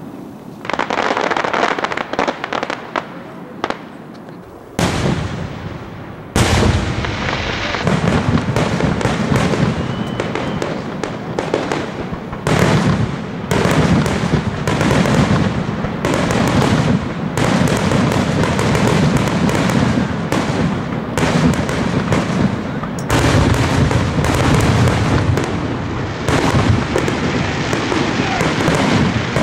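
Aerial fireworks display: shells bursting one after another, a few separate bangs at first, then from about six seconds in a near-continuous barrage of booms and crackles.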